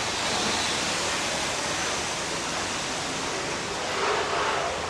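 Steady hiss of water spray at a car wash, an even rushing noise with no break.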